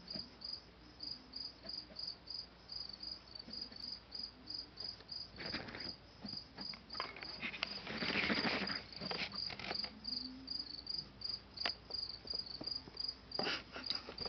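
Pet rabbit digging and scratching at fabric bed covers in several bursts, the longest and loudest about eight seconds in. Under it, a cricket chirps steadily, about three high chirps a second.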